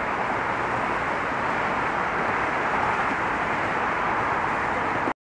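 Steady, even noise of road traffic with no distinct passes, which cuts off abruptly to silence near the end.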